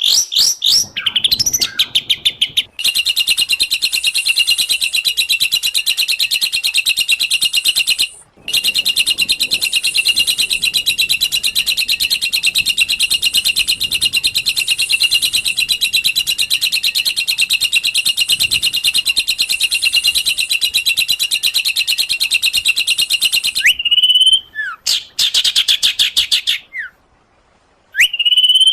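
Songbird song: a long, very fast, even trill held for many seconds, broken once about eight seconds in, opening with a few quick sweeping notes and ending with several separate gliding whistled notes.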